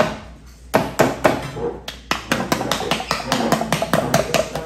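A sharp click as the Spam can's lid is pulled open, then rapid tapping on the upturned metal can, about four or five knocks a second, to knock the Spam loose.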